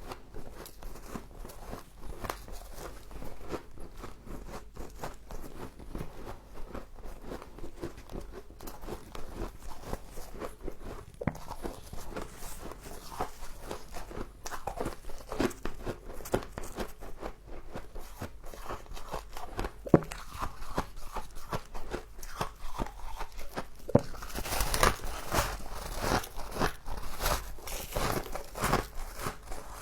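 Close-up crunching and chewing of mouthfuls of frost, a dense run of crackling bites that gets louder and crisper near the end.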